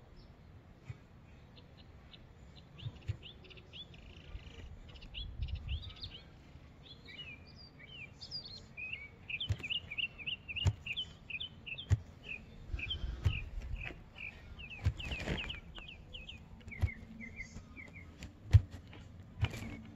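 A small songbird chirping in quick runs of short, high notes, thickest in the middle, with scattered sharp knocks that are loudest near the end.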